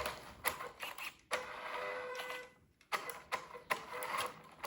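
Small electric motors and gears of a radio-controlled model whirring in short stop-start bursts, with sharp clicks between them.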